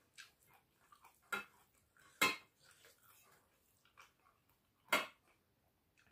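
A hand mixing rice and pork on a tin enamel plate, with soft scraping and three sharp clinks against the metal plate, about one, two and five seconds in; the one near two seconds is the loudest.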